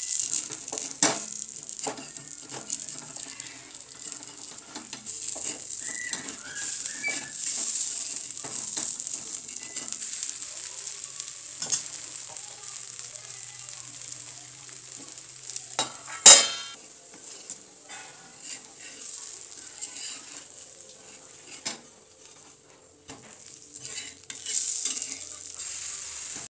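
Uttapam batter sizzling on a hot tawa griddle, with a steel spatula scraping and tapping the pan many times. There is one louder metallic clank about two-thirds of the way through.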